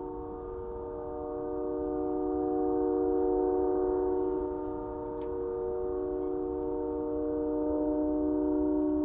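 A loud, steady drone of several held tones sounding at once, like a low chord. It swells a little about three seconds in and again near the end. It is one of the mysterious sky noises whose source is unidentified.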